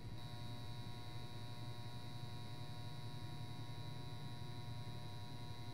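Steady electrical mains hum with faint high steady tones above it: room tone.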